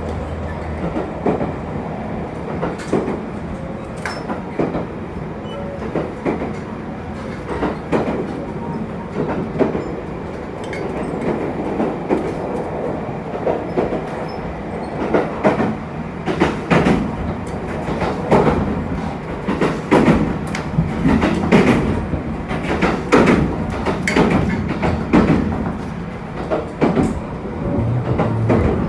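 HB-E300 series hybrid diesel-electric railcar running at speed, heard from inside the passenger cabin: a steady running rumble with irregular clicks and knocks from the wheels on the track, busier in the second half.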